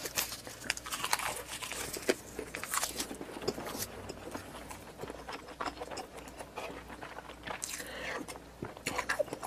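Close-miked eating: a person biting and chewing, with a dense run of irregular wet clicks.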